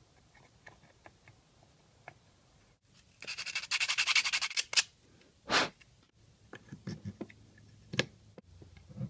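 A rag rubbing briskly over a Honda distributor's metal housing: a run of rapid wiping strokes lasting about a second and a half, then a single swipe. Light clicks and taps of the distributor's plastic cover being handled and fitted come before and after, with one sharper click near the end.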